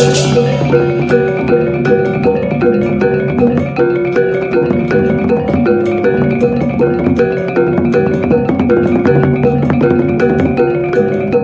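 Balinese gamelan music: metallophones playing a fast, evenly repeating pattern of bell-like notes.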